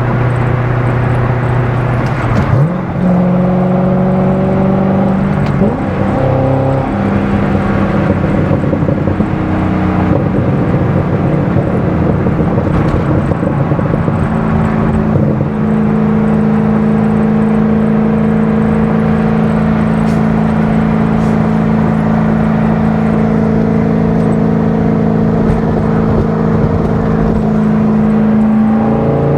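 Corvette C6 Z06's 7.0-litre LS7 V8 running at highway cruise, with tyre and road noise under a steady engine drone. The engine note steps up in pitch about three seconds in, shifts again a few seconds later, steps up once more about halfway through, and starts rising near the end.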